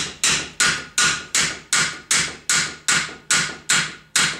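Steady hammer blows on a metal part at a VW Golf's front wheel hub and steering knuckle, about three strikes a second, each ringing briefly. The part is being tapped into place by working around its outer edge.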